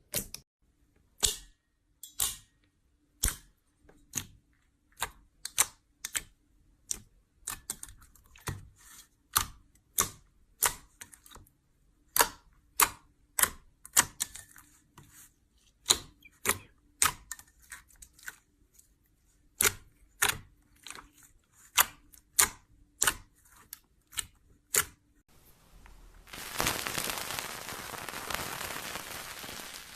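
Slime being pressed and poked by hand, giving sharp clicky pops about once or twice a second. Near the end a steady, dense crackling hiss takes over.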